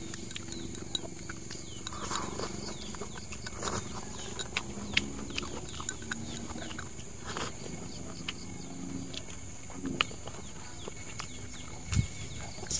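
Eating with chopsticks from a plastic container: scattered light clicks and taps, over a steady high-pitched whine and faint outdoor animal calls. A dull thump comes near the end.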